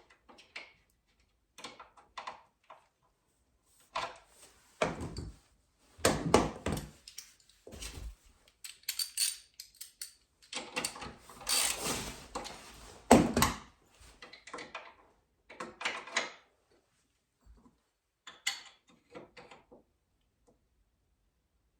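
Metal footpeg and mounting hardware being handled and fitted by hand with tools: scattered clinks, knocks and scrapes in irregular bursts, with a few louder knocks.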